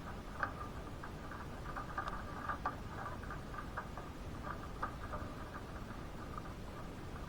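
Irregular light tapping of raindrops or drips on a hard surface, several taps a second, over a low steady rush of rain.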